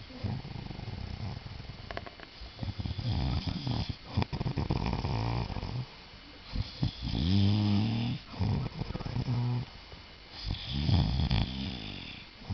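A man snoring loudly: a run of several long snores, one with each breath, with short pauses between them.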